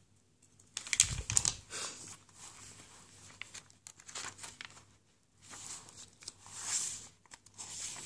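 Paper pages of a handmade envelope journal being flipped and handled, rustling in irregular bursts. The loudest handling, with a soft thump, comes about a second in; fainter rustles follow, swelling again near the end.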